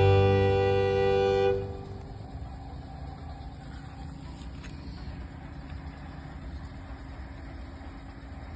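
A held horn-like tone that cuts off about a second and a half in, followed by a low steady hum.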